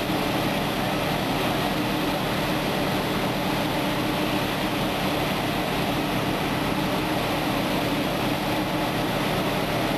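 Fire engine's engine running steadily while driving its water pump, a constant drone with a steady hum.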